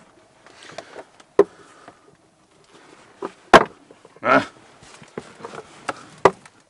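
Handling noise of hands rummaging through a hanging jacket's pockets: faint fabric rustling with three sharp knocks, the loudest about three and a half seconds in, followed by a short scraping rustle.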